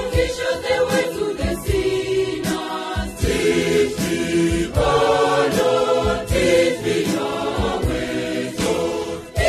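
Church choir singing a hymn in several voices over accompaniment that keeps a low, regular beat.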